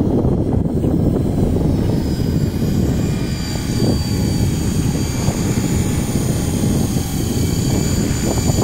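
500-size electric RC helicopter coming down and landing on grass, its spinning rotor giving a loud, steady rush with a thin high whine from the electric motor.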